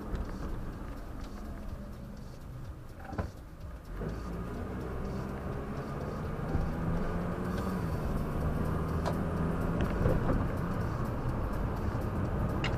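Engine and road noise of a moving car heard from inside the cabin through a dashcam's microphone. The engine note falls in the first seconds, then grows louder from about four seconds in with its pitch rising, as when the car speeds up again; a short click is heard about three seconds in.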